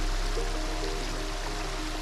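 Background music, a simple melody of short notes over a low bass line, laid over the steady rush of running water from a backyard pond waterfall.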